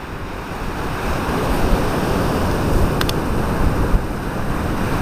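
Ocean surf washing onto the beach with wind rumbling on the microphone, swelling louder over the first second or two.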